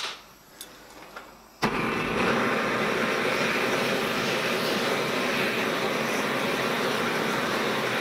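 A few clicks and a knock, then a gas blowtorch lights with a sudden whoosh about a second and a half in and burns steadily. It is heating a copper boiler plate on firebricks to anneal it, softening the work-hardened copper between forming rounds.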